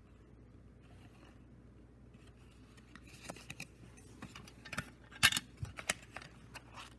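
Near silence for the first few seconds, then a cassette's paper J-card insert rustling and crinkling as it is folded and handled, with a series of short sharp clicks and taps, the loudest about five seconds in.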